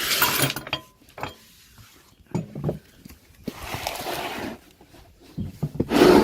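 A van's spare wheel being pulled out from under the vehicle, the tyre scraping and knocking against the ground in several short bursts, the loudest near the end.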